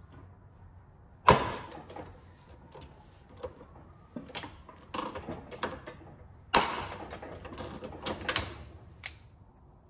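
Heavy-duty Mac lever-action rivet gun setting pop rivets through a magnetic strip into a steel tool cart: small clicks as the handles are worked, and two loud sharp snaps with a short metallic ring, about a second in and again past halfway, as the rivet mandrels break off.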